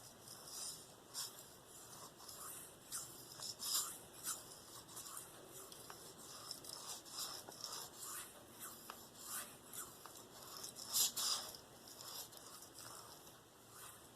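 Spyderco Endura 4's K390 steel blade drawn freehand across a Venev OCB diamond stone of 7/5-micron (about 2,500) grit: a run of short, high scraping strokes, one or two a second and uneven in strength, the strongest near 4 s and 11 s in.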